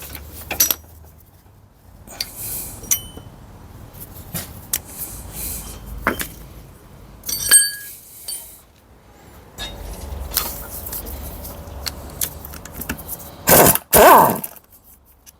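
Metal hand tools and gearbox parts clicking, clinking and scraping as a 10 mm bolt is undone on a manual-transmission housing, with a ringing metal clink about halfway and two louder knocks near the end.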